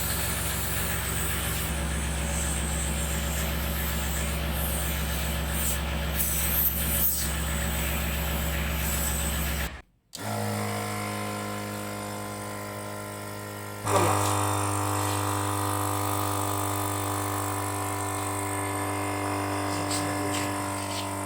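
Crown CT 36036 12 V mini air compressor running with a steady mechanical hum. The sound cuts out for a moment about ten seconds in, resumes at a different pitch, and gets louder around fourteen seconds.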